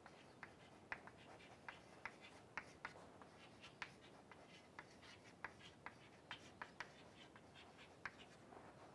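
Chalk writing on a chalkboard: a faint, irregular run of quick taps and short scratches, a few a second, as letters are written out.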